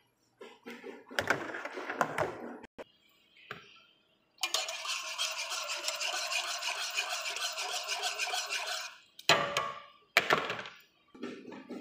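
Wire whisk beating béchamel sauce in a metal pot, with rapid scraping and clinking of the wires against the pan. A short patchy stretch comes first, then a longer steady run of whisking, and two brief louder strokes near the end.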